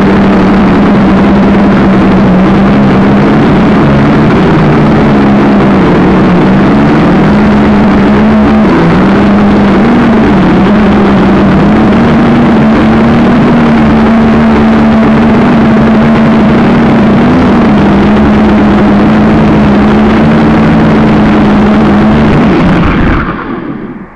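Syma X5C quadcopter's small coreless motors and propellers whining loudly, picked up by its own onboard camera, the pitch wavering up and down as it flies. The motors cut out near the end as it comes down onto the ground.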